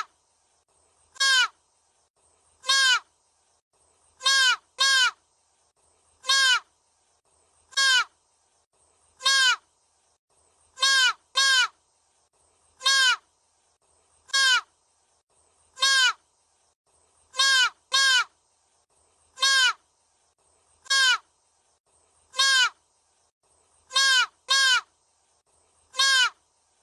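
A short, pitched animal call repeated identically about every one and a half seconds, sometimes twice in quick succession, with dead silence between calls.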